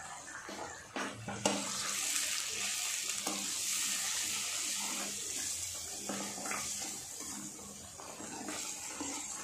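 Onion-tomato masala with freshly added ground spices sizzling in a steel pan while a steel spoon stirs it. A steady sizzle starts about a second and a half in, with a few light clicks of the spoon against the pan.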